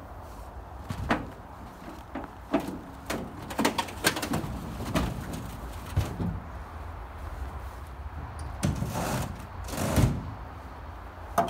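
Homemade wooden sled deck, loaded with a snowmobile, being pushed and slid into a pickup truck bed: scattered knocks and creaks of the treated lumber, with two longer scraping slides near the end.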